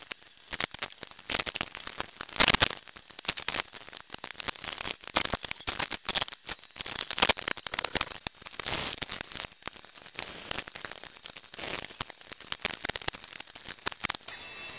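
Irregular clicks, taps and knocks of parts being handled and fitted back onto a car's front end: the A/C condenser and plastic grille trim.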